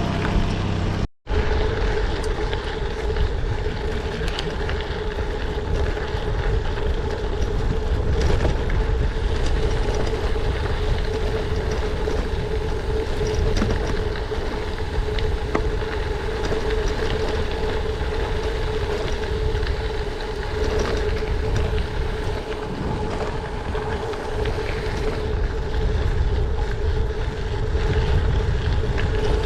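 Steady rush of wind on the action-camera microphone and tyre rumble from a gravel bike rolling at speed, with a steady hum underneath. The sound cuts out for an instant about a second in.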